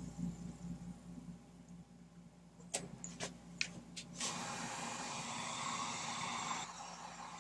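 Water splashing and running off a plastic mower air box lifted from a pan of quench water, with a few light clicks of the plastic being handled. A steady rush of water lasts a couple of seconds in the second half, over a low steady hum.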